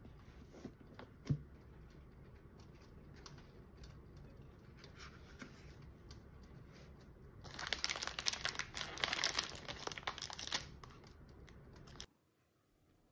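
A soft tap about a second in, then a thin plastic packaging bag crinkling and rustling for about three seconds as a hand works it.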